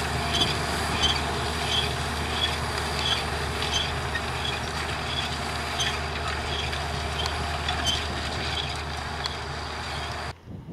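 John Deere 7920 tractor's six-cylinder diesel running steadily under load, pulling a Horsch Joker disc cultivator through the soil. A faint high chirp repeats about every three-quarters of a second. The sound cuts off abruptly near the end.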